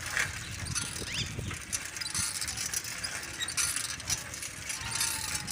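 A bicycle being ridden, rattling with many small irregular clicks over a low rumble of wind on the microphone.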